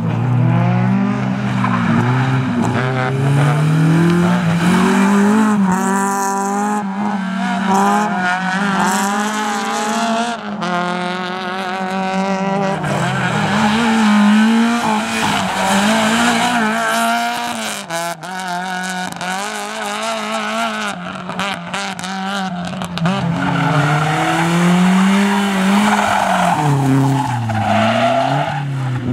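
Small rally cars driven flat out through a tight course: a Honda Civic, then a Fiat Seicento, then a BMW 3 Series Compact. The engines rev up hard and drop again and again through gear changes and turns, and the tyres squeal as the cars slide around the tyre-stack chicanes.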